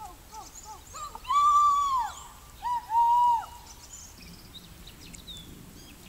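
A dog whining: a few short falling whimpers at the start, then two long high whines, one about a second in and one about three seconds in, each holding its pitch and then dropping away.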